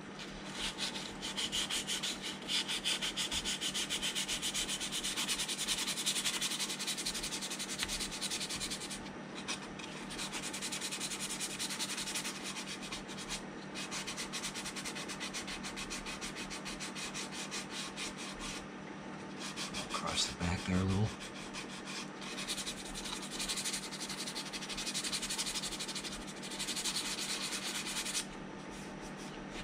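Coarse sandpaper rubbed back and forth by hand over dried putty on the seams of a plastic model-kit hull. It is a steady scratchy rubbing that stops briefly a few times.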